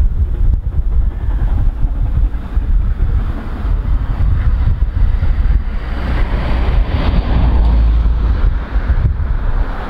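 Wind buffeting the microphone with a heavy, uneven rumble, strongest in the second half. Beneath it is the sound of a steam locomotive, BR Britannia class pacific 70013, working towards the camera from a distance.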